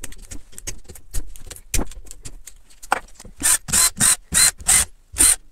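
Hand tools clicking and knocking against a small motorcycle engine, then a quick run of about six ratchet-wrench strokes in the last two seconds.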